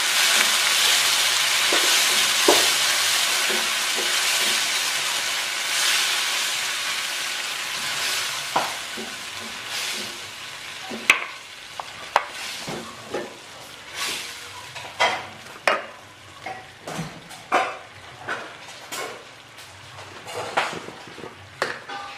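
Sauce sizzling in a hot nonstick frying pan just after water is added, with the sizzle fading over the first several seconds. A spatula stirs through it, and later its strokes are heard as separate scrapes and taps against the pan, about one or two a second.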